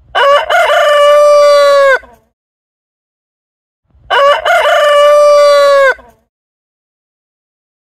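Rooster crowing twice, each cock-a-doodle-doo about two seconds long with a short broken start and a long held final note that falls off at the end, the two crows about four seconds apart.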